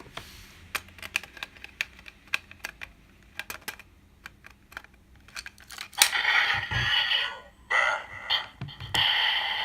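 Sharp plastic clicks as a Full Bottle is fitted into the Kamen Rider Build Transteam Gun toy in rifle mode. About six seconds in, the toy's small speaker starts loud electronic sound effects and voice audio, broken by short pauses.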